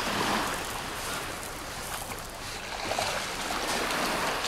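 Small waves washing onto the beach, an even rush of noise that eases off in the middle and builds again near the end.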